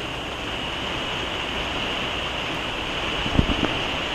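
Storm wind and rain on a motorhome, a steady rushing hiss, with a couple of short low knocks about three and a half seconds in.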